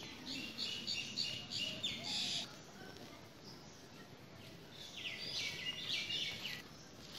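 A small bird singing outdoors: two runs of quick, high repeated notes, the first just after the start and the second about five seconds in.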